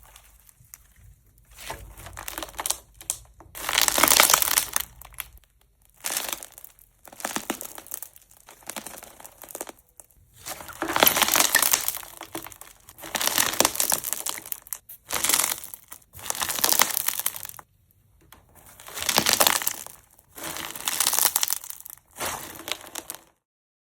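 Repeated bursts of rustling, crinkling noise, about ten of them, each lasting one to two seconds with short pauses between, stopping shortly before the end.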